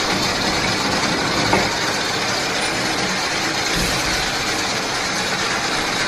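Electric double-cut copper wire stripping machine running steadily as a 4 mm PVC-insulated wire is fed through and its insulation slit, with one faint click about a second and a half in.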